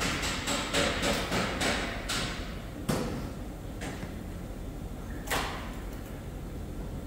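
Hand work on a damaged car's bodywork: a run of quick strokes, about four a second, for the first two seconds, then three separate sharp metallic knocks, the first the loudest.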